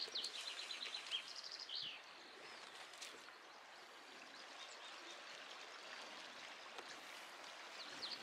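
Steady, faint rush of flowing river water, with a small songbird singing quick trills of high repeated notes during the first two seconds and again near the end.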